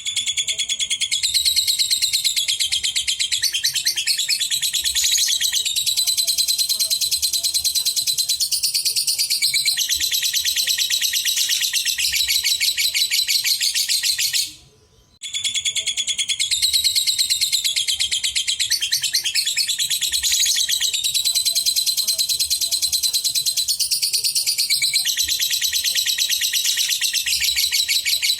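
Lovebird giving its long, unbroken chattering song (ngekek), a fast, high-pitched run of chirps. It stops for about half a second near the middle, then the same song starts over.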